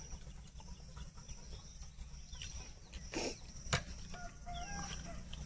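A chicken clucking a few short times about four seconds in, with a single sharp knock just before it, over a steady low background hum.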